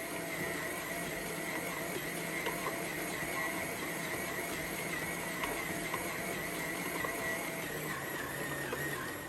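Electric mixer running steadily as it mixes cinnamon-roll dough, with a constant motor hum; it switches off at the very end.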